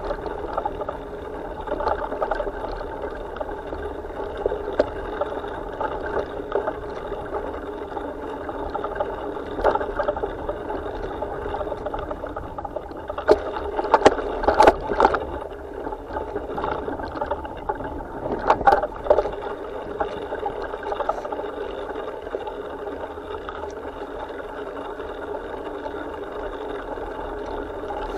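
Mountain bike rolling fast along a dirt trail, heard through a bike-mounted camera: a steady rush of tyre and wind noise. A cluster of sharp knocks and rattles comes about halfway through as the wheels cross a wooden plank ramp, and another rattle follows a few seconds later.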